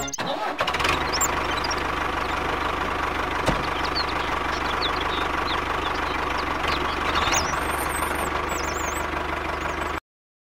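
A machine running steadily with a low hum, with short high chirps over it; it cuts off suddenly near the end.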